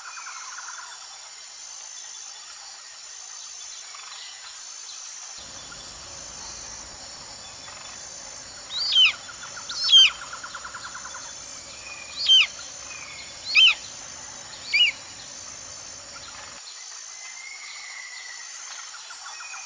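Bald eagle calling: five short, sharp, high-pitched calls in the middle, well above the background. A quieter fast trill from another bird and a faint insect hum run underneath.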